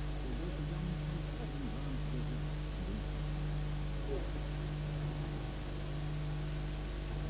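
Steady electrical hum under an even hiss, with faint, indistinct voices in the first couple of seconds and again briefly about four seconds in.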